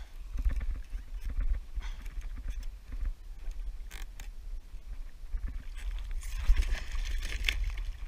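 Knocks and bumps of handling on a plastic sit-on-top fishing kayak, under a low rumble. Near the end a burst of splashing and dripping water as a hooked fish is swung out of the sea and into the kayak.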